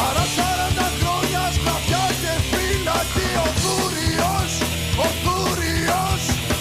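Rock song playing: a steady drum beat under bass and guitars, with a melody line gliding over them.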